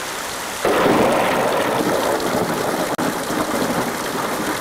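Heavy rain falling, the drops splashing into a metal bucket of water. A little under a second in it turns louder and fuller as rainwater pours off a roof edge and splashes down.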